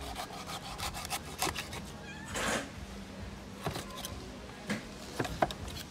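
Knife cutting and scraping through stingray meat and skin on a plastic tarp: a run of small clicks and wet rasps, with a louder rasp about two and a half seconds in.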